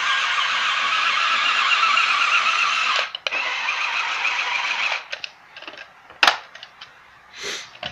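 Flytec amphibious RC stunt car's small electric drive motors and gearing whirring steadily, with a brief dropout about three seconds in, then cutting off about five seconds in. A few clicks and one sharp knock follow.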